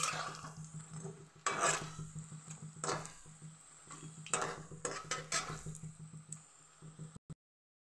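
Capsicum-and-potato tikkis sizzling in hot oil in a kadhai, while a metal spatula scrapes and clinks against the pan several times as they are moved. The sound cuts off suddenly near the end.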